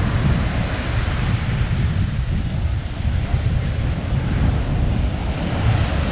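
Ocean surf breaking and washing up the beach, with steady wind buffeting the microphone in a low rumble.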